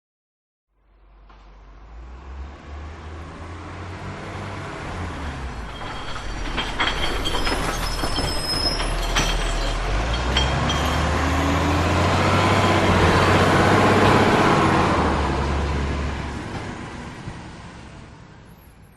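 A heavy truck approaching and passing by. Its low engine drone builds up to a peak near the three-quarter mark and then fades away. Brief high squeals and a few sharp clicks come in the middle.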